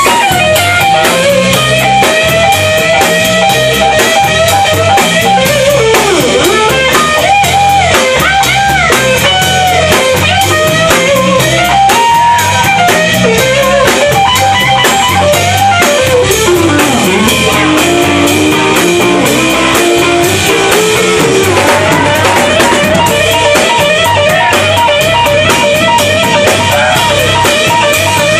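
Blues band playing live: an electric guitar lead with bent notes over a drum kit, settling into a repeated riff about 22 seconds in.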